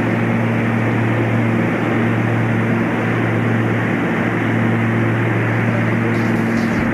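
Light aircraft's engine and propeller droning steadily in flight, heard from inside the cockpit.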